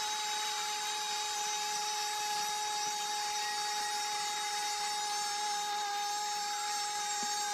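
A steady high-pitched whine: one held tone with overtones that does not change in pitch.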